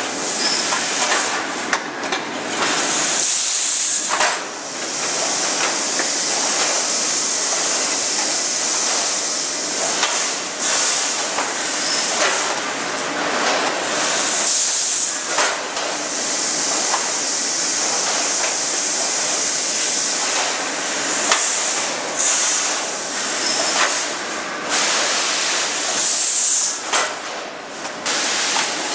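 Steel rolling-mill machinery: a steady high hiss, with clanks and rattles of steel bars moving over the cooling bed and roller conveyors. The hiss swells louder a few times.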